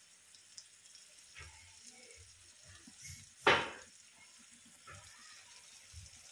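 Pork with onions and tomatoes frying in a pan, a faint steady sizzle, with one sharp loud knock about three and a half seconds in.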